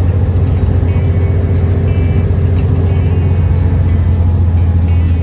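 Steady low drone of a bus running, heard from inside the cabin, with light background music on top.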